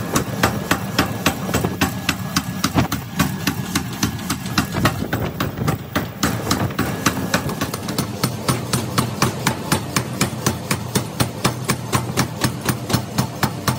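Power hammer forging a red-hot steel blank, striking in quick, even blows about four a second over the steady hum of the running machine.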